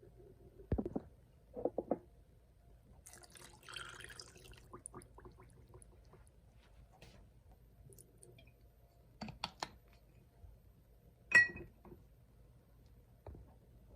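Kitchen prep sounds: a few knocks and clatters, a short stretch of pouring or running water about three to five seconds in, and one sharp ringing clink of a dish or utensil about eleven seconds in.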